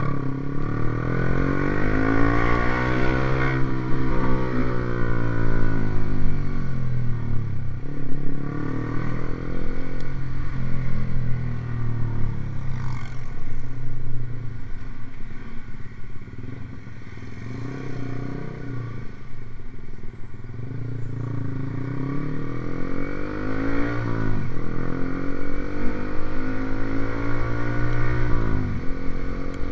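Motorcycle fitted with an aftermarket racing exhaust, revved up and back down several times with short idles between the revs. The last two revs, near the end, are quick and sharp.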